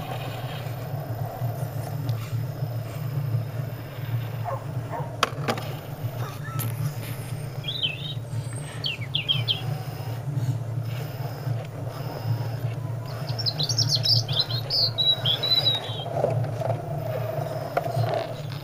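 Small electric motors and gearboxes of radio-controlled scale crawler trucks running slowly, a steady low hum with a rising whine near the end. Birds chirp in short spells about eight seconds in and again a little after halfway.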